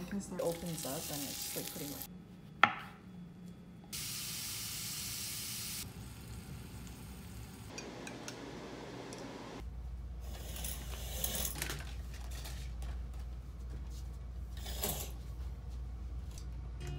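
A run of short kitchen clips: food being handled and cut on a wooden cutting board, with a sharp knock about two and a half seconds in. A few seconds of steady hiss follow, then a low steady hum under light clinks and rustles of dishes and cutlery.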